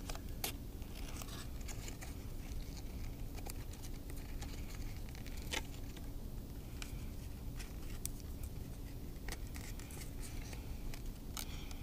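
Paper cutouts handled and rustled, with a few scattered small clicks, as metal brad paper fasteners are pushed through holes to join the pieces.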